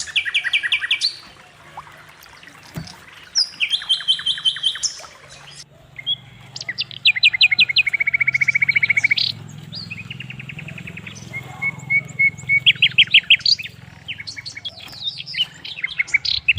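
Songbird singing: several bursts of fast trills, each a run of sharp, evenly repeated high notes lasting a second or more, with short gaps between bursts.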